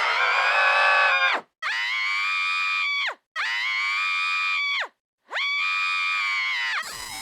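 Sniffles' scream from Happy Tree Friends, replayed four times in a row through different electronic voice effects. Each pass is a held, pitched scream of about a second and a half that drops away at its end, with short gaps in between. A quieter, differently processed pass starts near the end.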